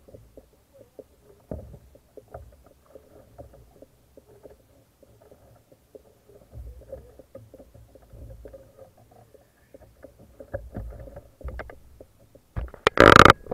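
Water lapping and slapping against a plastic kayak hull, with gusty low rumbling on the camera mounted on the hull and scattered small knocks. A loud clattering burst comes near the end.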